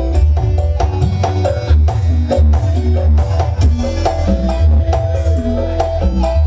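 Live dangdut music in an instrumental passage: an electronic keyboard melody over a heavy bass and a steady percussion beat, with no singing.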